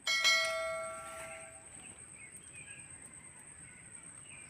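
Notification-bell chime sound effect from a subscribe-button animation: one bright ring that starts suddenly and fades out over about a second and a half, over a steady thin high-pitched whine and faint outdoor background.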